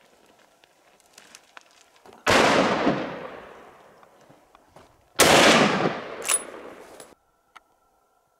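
Two hunting rifle shots about three seconds apart, each followed by a long rolling echo that dies away over a second or two.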